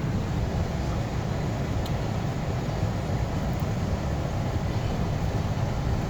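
Steady road and engine noise of a car driving, heard from inside the cabin: an even, low rumble that does not change.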